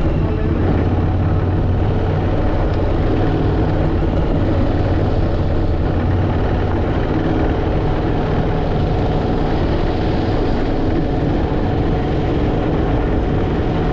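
Motorcycle engine running steadily at cruising speed while riding a dirt track, with wind noise on the microphone.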